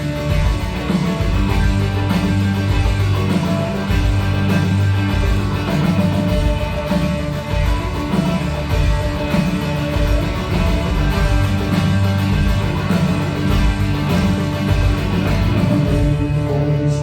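Worship band playing an instrumental passage: guitar over bass with a steady beat, no vocals.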